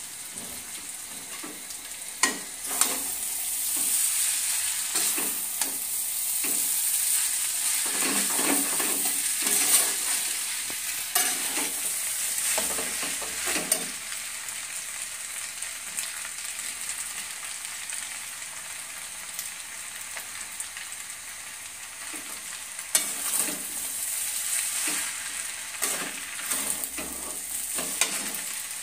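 Noodles and scrambled egg frying in a pan over a gas flame, sizzling steadily, with steel tongs clattering and scraping in the pan as the noodles are tossed and stirred. The stirring comes in spells, busiest in the first half and again near the end.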